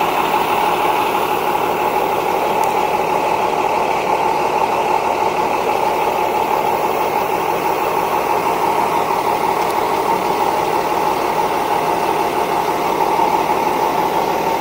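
Forklift engine running steadily at a constant speed, with no change in revs.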